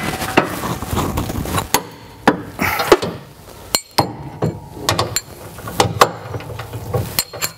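Long ratchet and combination wrench tightening steel bolts on a gooseneck hitch's cross members: irregular ratchet clicks and metallic clinks of the tools against the bolts and steel frame, some with a short ring.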